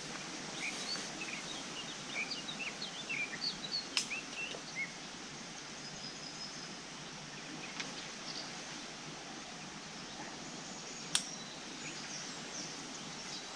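Riverbank ambience: a small bird chirping in quick short notes for the first few seconds over a steady outdoor hiss. A sharp click comes about four seconds in, and another, sharper click about eleven seconds in.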